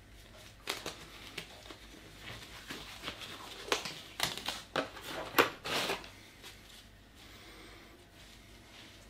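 Thin nitrile disposable gloves being pulled on and stretched over the hands: a run of short rustling, stretching noises, the loudest about five and a half seconds in.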